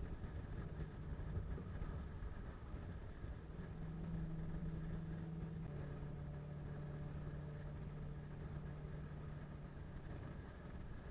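Car cabin noise while cruising at highway speed: a steady low road and tyre rumble with an engine hum, whose pitch settles slightly lower about halfway through.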